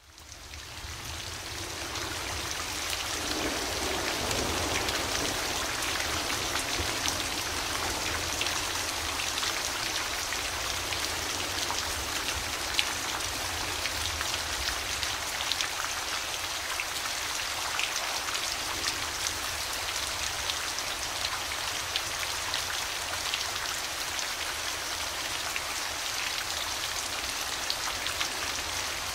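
Steady rain falling, with many individual drop hits in it. It fades in over the first couple of seconds and then holds at an even level.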